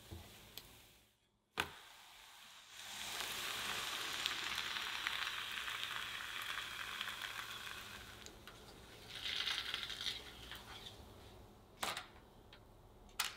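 A thin chocolate crepe sizzling in a hot square nonstick frying pan just after being flipped. The sizzle starts about three seconds in, fades after about five seconds, and flares up briefly once more. There are a few sharp clicks near the start and near the end.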